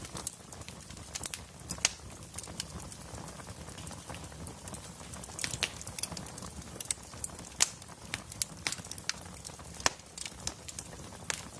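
Wood fire crackling in a fireplace: irregular sharp pops and snaps, a few louder than the rest, over a low steady rumble of burning logs.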